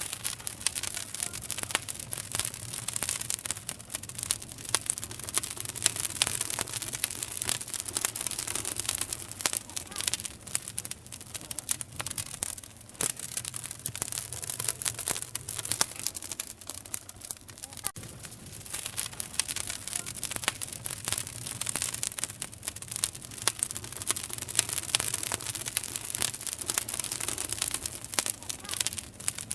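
Wood campfire crackling and popping: a dense, irregular run of sharp snaps over a steady hiss.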